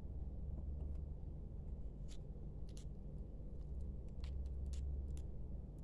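Light handling clicks and taps as AA batteries are picked up by hand, a few scattered and then a cluster between about four and five seconds in, over a low steady hum.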